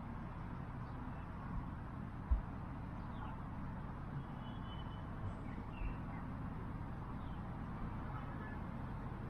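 Steady low background rumble with a few faint, brief bird chirps here and there. A few soft low thumps come through, the sharpest a little over two seconds in.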